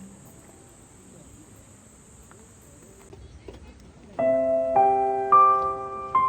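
Faint background with a high, steady insect-like drone that cuts off about three seconds in. About four seconds in, background piano music begins, with notes struck one after another.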